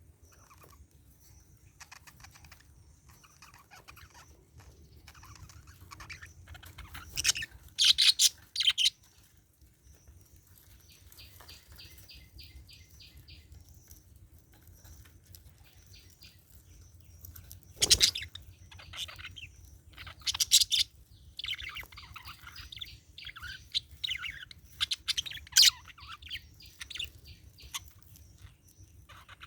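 Budgerigar chattering and chirping in short, irregular bursts, with loud clusters of chirps about eight seconds in and again from about twenty seconds on, and a quick run of even ticking notes near twelve seconds. A single sharp knock about eighteen seconds in.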